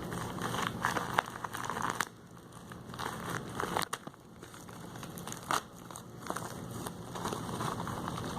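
Earphone packaging being handled and opened: plastic crinkling and rustling in irregular bursts, with scattered sharp clicks.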